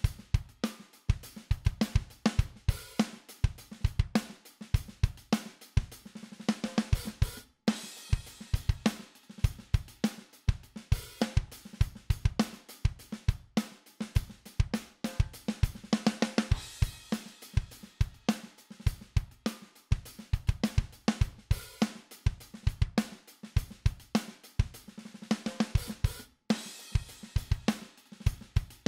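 A full drum kit groove from a mixed drum bus, with kick, snare, hi-hat and cymbals, playing through a Midas 522 500-series compressor. It is a steady beat with a few very short breaks between phrases.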